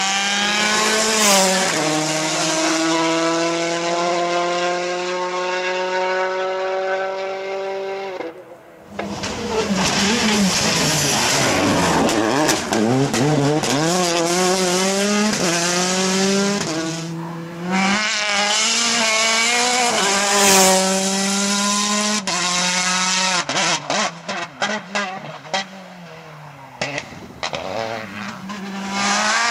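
Citroën DS3 rally car engine at full throttle, its pitch climbing and dropping in steps through the gear changes over several passes. Sharp pops and crackles from the exhaust come in the last few seconds as the throttle comes off.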